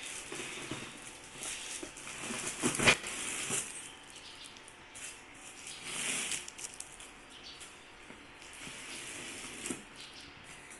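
Packaging being cut and pulled open by hand: irregular crinkling and rustling with scattered sharp clicks, the sharpest about three seconds in.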